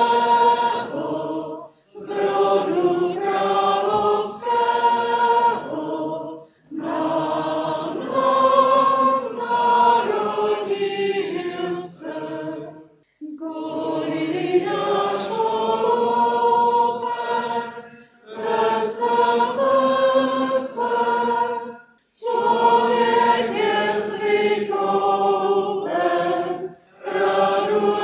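A group of voices singing a hymn without accompaniment, in phrases of a few seconds with short breaths between lines.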